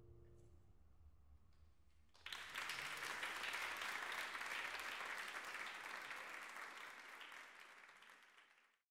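The last piano notes die away, then about two seconds in an audience breaks into applause. The applause slowly fades and is cut off just before the end.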